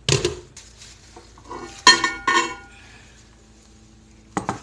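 Dishes being handled: a few sharp clinks and knocks of a dish and its cover, the loudest pair about two seconds in with a short ring after them, and another couple near the end.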